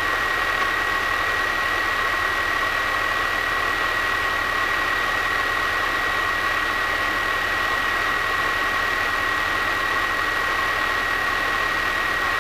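Single-engine piston aircraft engine idling, heard from inside the cockpit, with a steady high-pitched whine over the even engine noise.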